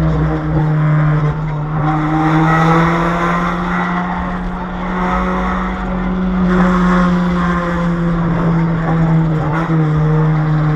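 Toyota Vios driving with a cracked exhaust pipe, the exhaust running loud like a rally car. The engine note holds nearly steady, swelling slightly a couple of times.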